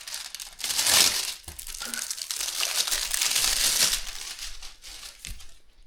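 Packaging crinkling as a small packet of hardware is handled and opened by hand, in uneven bursts, the loudest about a second in.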